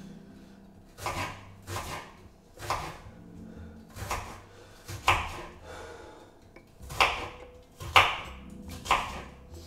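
Kitchen knife chopping an onion on a wooden cutting board: about eight separate chops at an uneven pace, roughly one a second.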